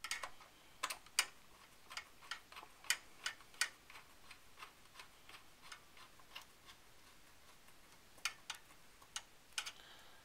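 Irregular light clicks and ticks of a long 2.5 mm Allen driver working the spring-loaded processor mounting screws in a Power Mac G5. The clicks come thick over the first few seconds, thin out, then pick up again near the end.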